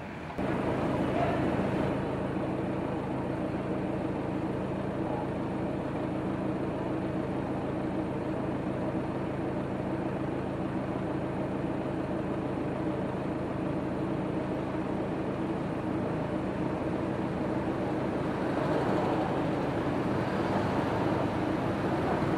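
An engine running steadily, a low even drone that does not change.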